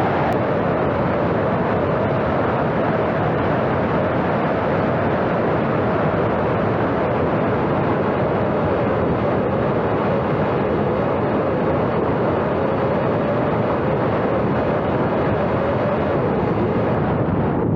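Steady rush of wind with the even drone of a model flying wing's motor and propeller; its pitch sinks slightly over the stretch.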